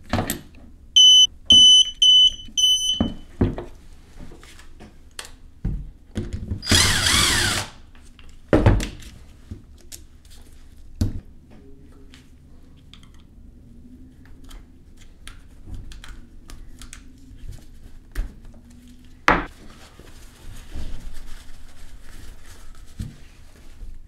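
Electronic torque wrench beeping rapidly, about five high beeps over two seconds, signalling that a cover-plate bolt has reached its set torque of 10 Nm. Around seven seconds in comes a harsh rasping burst about a second long, with scattered clicks and knocks of tools and parts being handled.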